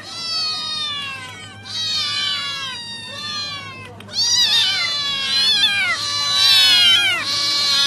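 Several young ginger and ginger-and-white cats meowing at once, their meows overlapping one after another without a break. The calls grow louder about halfway through.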